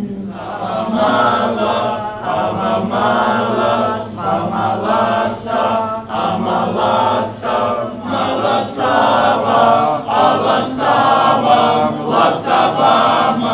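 A small group of men's and women's voices singing a text together, unaccompanied, in short phrases with brief breaks between them.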